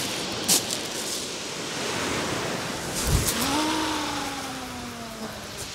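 Surf washing on the beach. About three seconds in comes a thump, then a multiplier casting reel's spool whines as line pays out on the cast, its pitch sliding slowly down as the spool slows.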